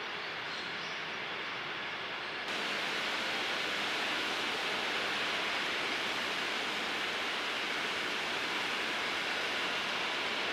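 Steady, even hiss of outdoor background noise with no distinct source; about two and a half seconds in it changes abruptly to a slightly louder, brighter hiss.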